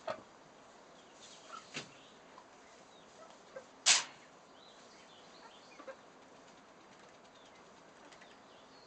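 Chicken flapping its wings in a short, sudden burst just under four seconds in as it hops onto the goat's back. A few smaller flutters and faint chicken calls come before and after.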